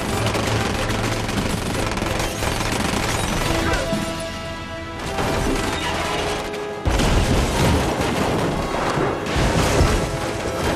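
Action film soundtrack: pistol gunfire and sound effects over a dramatic music score. About seven seconds in comes a sudden loud crash of metal as an excavator arm knocks cars off a flatbed rail wagon.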